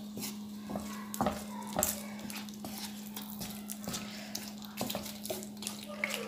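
Wooden spatula slowly stirring a thick chicken curry in a pan, with scattered soft scrapes and knocks against the pan over a steady low hum.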